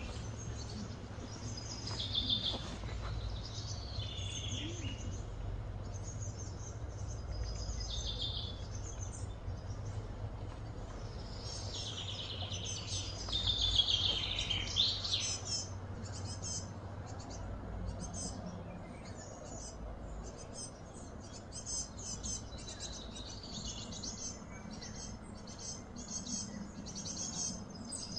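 Birds calling and chirping: scattered calls throughout, the loudest run about halfway through, then quick short chirps toward the end, over a low steady background rumble.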